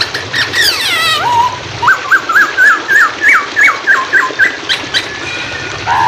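Poksay hongkong (Chinese hwamei) singing: a falling whistle about a second in, then a quick run of about a dozen short, slurred whistled notes, roughly four a second. A steady hiss of running water is underneath.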